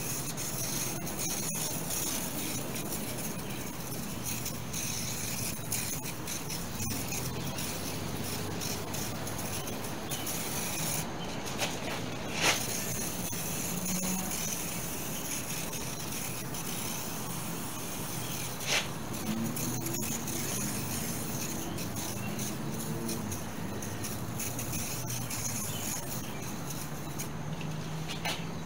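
Aerosol can of foam cleaner hissing as it sprays onto whitewall tire sidewalls, in long bursts with a short break. Two brief sharp clicks partway through.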